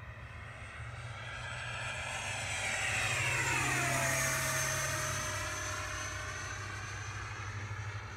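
Electric ducted-fan model jet, a Mini Avanti S with a Schübeler DS-51-AXI HDS fan driven by a HET 700-68 motor, making a flyby: its high whine swells, peaks about four seconds in, then drops sharply in pitch as it passes and fades away.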